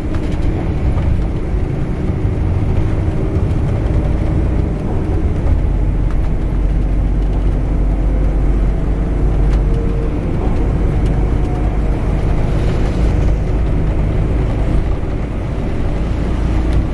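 Steady low rumble of a Scania K410IB coach under way, its engine and road noise heard from inside the cabin near the rear.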